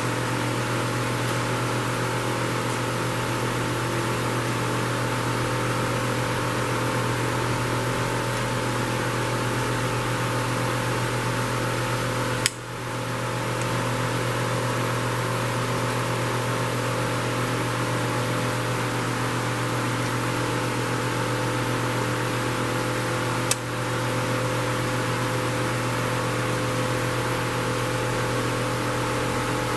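Steady hum and whir of a small electric desk fan running, with two sharp clicks, about twelve and twenty-three seconds in.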